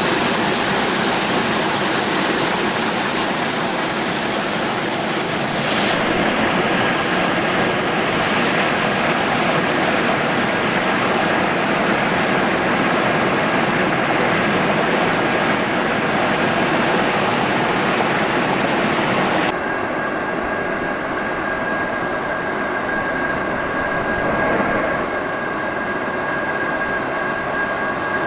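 Fruit and vegetable washing machine running with a steady whooshing hum of its bubble and air-drying fan system. The sound changes abruptly about six seconds in and drops a little quieter about twenty seconds in, as the machine switches modes.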